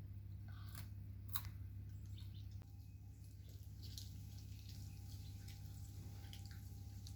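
Faint eating sounds: scattered small clicks and smacks of a girl chewing finger food, over a steady low hum.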